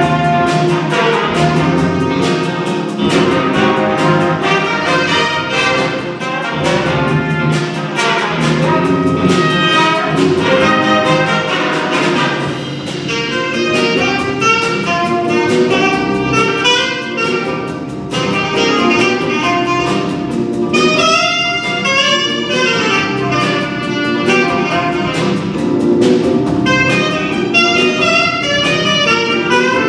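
Jazz band with saxophones and brass playing an up-tempo piece, horn lines weaving over a steady accompaniment.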